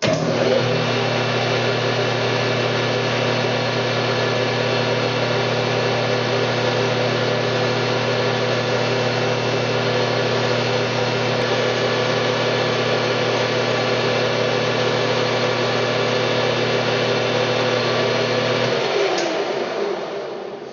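Metal lathe switched on and running steadily, a hum with a steady whine, while a hand file is drawn across the spinning 12L14 steel workpiece. Near the end the lathe is switched off and the whine falls in pitch as the chuck spins down.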